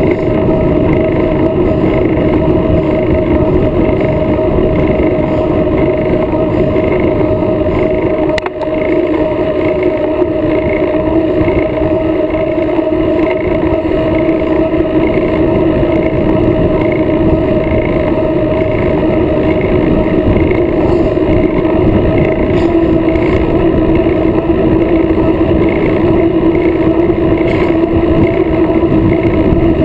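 Steady wind rush and road noise on a bicycle-mounted action camera riding at speed on asphalt, with a constant hum through it, dipping briefly about eight seconds in.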